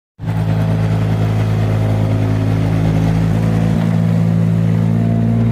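A steady, loud engine hum with a low, even pitch. It starts suddenly a moment in, out of silence, and holds level throughout.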